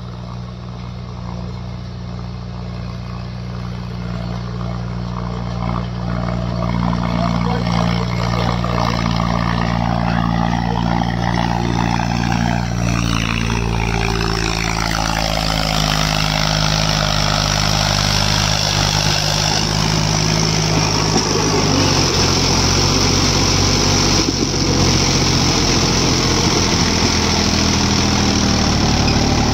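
Diesel engines of heavy machinery (a backhoe loader and tractors) running steadily, growing louder over the first several seconds. A whine falls in pitch about halfway through.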